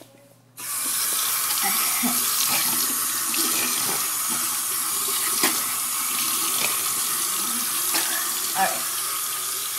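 Bathroom sink tap turned on about half a second in and running in a steady stream.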